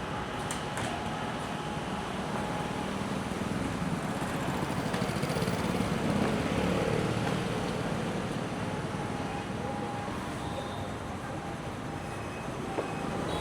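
Street traffic: the steady noise of passing vehicles, swelling as one passes about five seconds in and easing off again.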